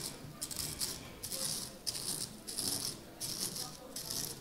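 Corn flakes being crushed in a bowl with a utensil: repeated crisp crunching and rattling, about two or three strokes a second.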